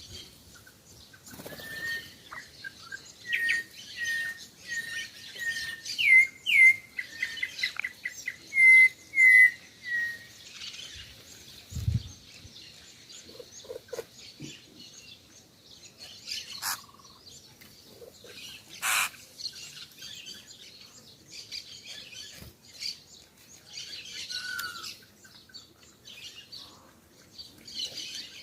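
Several birds chirping and calling. One repeats a short whistled note about twice a second for several seconds, then stops, and scattered chirps follow.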